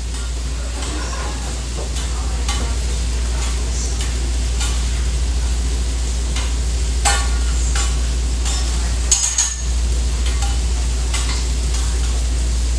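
Food sizzling on a restaurant flat-top griddle, with scattered clinks and scrapes of cooking utensils, over a steady low hum.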